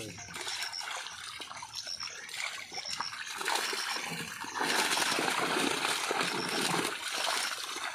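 Water splashing and sloshing as live fish thrash in a cast net held in shallow water and are picked out by hand. The splashing grows louder for about three seconds past the middle.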